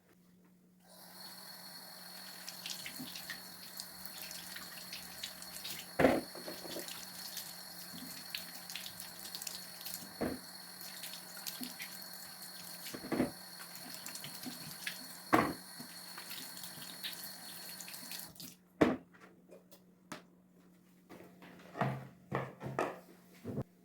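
A tap running into a sink, with a few sharp knocks of things handled under the stream. The water is turned off about 18 seconds in, followed by several light knocks and clinks.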